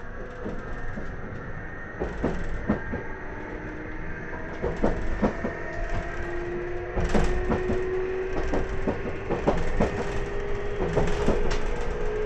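JR Kyushu 811 series electric train under way, its externally fanned traction motors giving a whine that slowly rises in pitch as the train gathers speed. The wheels click and knock over rail joints and points.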